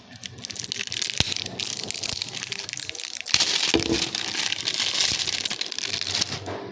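Windshield repair kit's packaging crinkling and rustling as it is opened and handled, with louder crinkling from about three seconds in.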